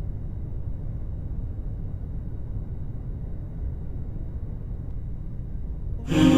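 A steady low rumbling noise, heaviest in the bass, with no distinct events. Just before the end, music with a hummed, wordless melody comes in loudly.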